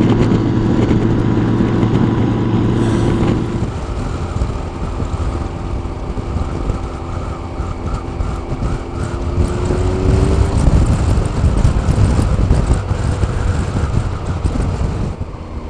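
Motorcycle riding at about 75 mph, heard from a helmet-mounted camera: wind popping over the microphone with the engine's steady hum underneath. The sound drops in level about three and a half seconds in.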